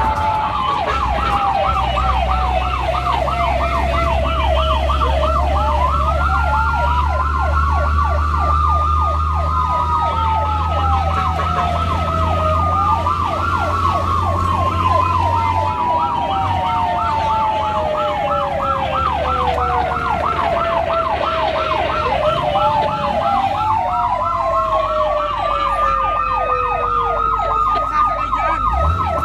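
Fire-and-rescue vehicle sirens. A fast yelp warbles about three times a second throughout, overlapped by slower wail sirens that rise quickly and then fall away over several seconds, above a steady low engine drone.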